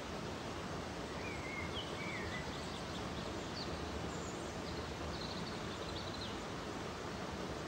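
Steady rush of a shallow rocky stream flowing. A few faint bird calls come over it: two wavering whistles about a second in, then a run of short high chirps in the middle.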